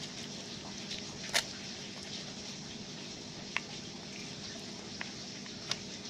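Steady hiss of tropical rain with four short sharp clicks, the loudest a little over a second in, from a plastic Easter egg shell being handled.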